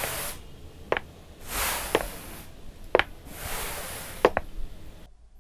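Paintbrush strokes swishing across paper, three long strokes about a second each. Short sharp ticks come roughly once a second throughout.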